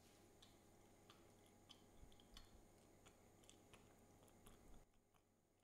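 Near silence: faint room tone with scattered soft clicks, the background hiss dropping a little near the end.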